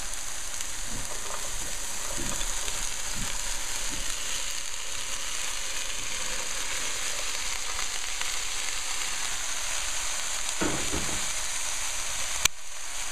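Onions and brown sugar frying in oil in a sauté pan: a steady sizzle with the sounds of stirring, as diced raw potatoes, carrots, peas and corn are tipped into the pan partway through. A sharp click sounds near the end.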